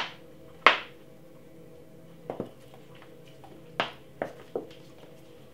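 About half a dozen short, sharp plastic clicks and knocks, spaced unevenly, as a plastic honey bottle is handled and squeezed over a blender cup.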